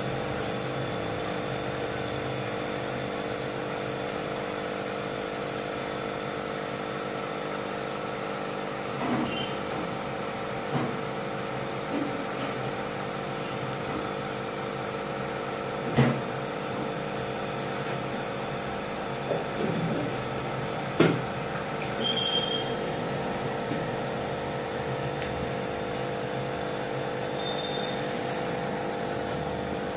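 Steady electric hum of an aquarium's air pump, with a few light knocks and clicks scattered through the middle.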